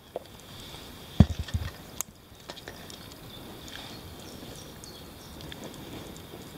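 Water bubbling at a rolling boil in a metal cauldron full of crayfish, with a few loud low knocks and a click between one and two seconds in.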